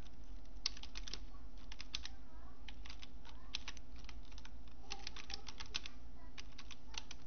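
Computer keyboard being typed on, short irregular runs of key clicks, over a steady low hum.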